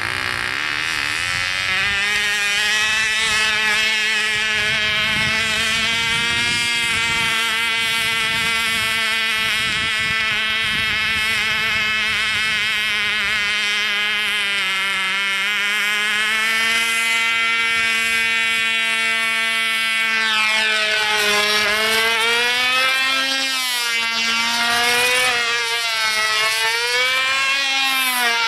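Fox .36X model glow engine on a model airplane running at high speed with a steady buzzing whine. From about two-thirds through the pitch rises and falls in repeated waves as the airborne plane moves toward and away from the listener.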